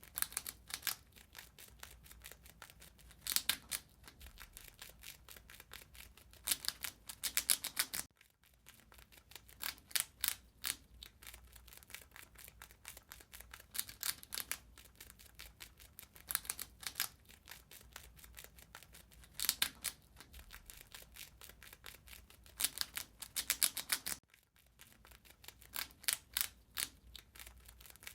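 Rat gnawing and chewing: fast trains of small, sharp, crunchy clicks, with louder bursts every few seconds.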